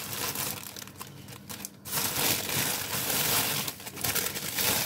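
Thin plastic bag crinkling and rustling as hands work fresh parsley into it, louder from about two seconds in.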